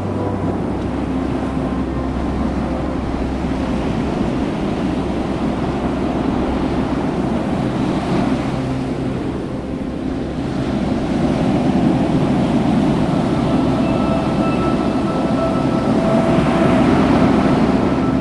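Ocean surf washing in steady waves, with wind noise on the microphone. Faint held musical notes lie underneath.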